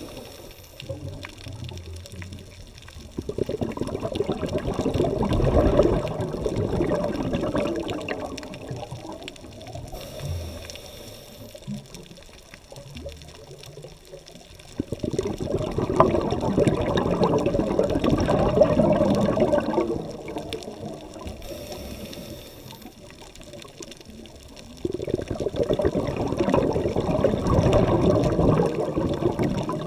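Scuba diver's exhaled bubbles heard underwater: three long rushing bursts about ten seconds apart, with quieter stretches between.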